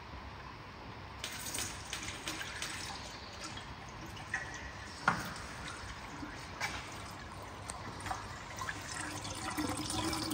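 Used engine oil draining from a BMW M3's oil pan through the open drain-plug hole. A steady pouring stream splashes into a catch basin, starting about a second in, with scattered small clicks and a sharper knock about five seconds in.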